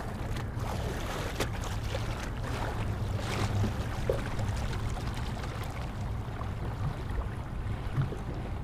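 Small waves lapping and splashing close to the microphone, with a few sharper splashes, over a steady low rumble.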